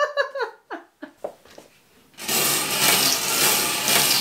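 A small wire bingo cage being cranked round, its balls tumbling and rattling against the wire. The rattling starts about two seconds in and keeps on steadily, after a brief voice sound and a few light clicks at the start.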